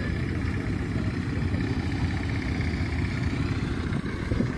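An engine idling, a low rumble at a constant level.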